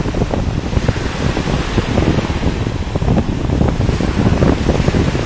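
Small surf breaking and washing up onto a sandy beach, a steady rushing of water, with wind buffeting the microphone.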